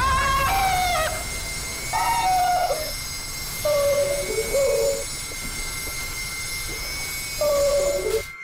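Sound-torture device switched on, a dramatised sound effect meant to be deafening: a steady high whine over a low rumble, with harsh, squawking cries that bend in pitch and come again and again.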